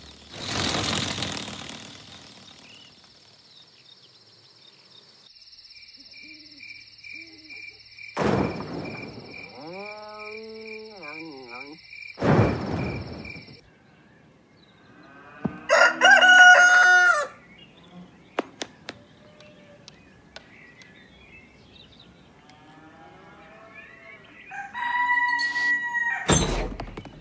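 A rooster crows once, about two-thirds of the way through, the loudest sound here, among cartoon sound effects: a steady high ringing tone with a quick pulse for several seconds in the first half, and several short swishes.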